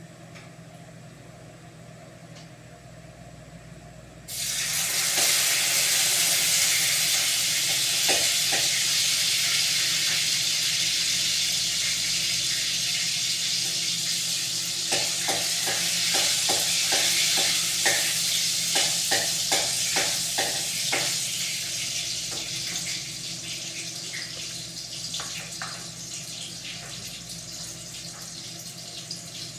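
Food going into a hot oiled pan: a sudden loud frying sizzle starts about four seconds in and slowly dies down. Midway there is a quick run of utensil clicks and scrapes against the pan as it is stirred. Before the sizzle only a steady low hum is heard.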